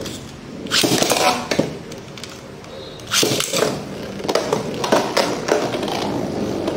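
Two Metal Fight Beyblade tops, Galaxy Pegasus against a defence-type combo, launched with a zip of the launcher about a second in. They then whir on the plastic stadium floor and clash with sharp clicks around three seconds in and again around five.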